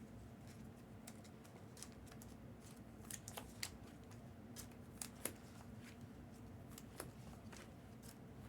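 Faint, scattered clicks and light rustling of trading cards being handled, over a low room hum, with a few louder clicks in the middle.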